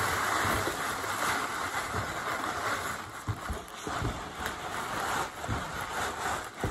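Tissue paper and brown paper wrapping rustling and crinkling as they are pulled out of a shipping package by hand, with a few soft low bumps of handling.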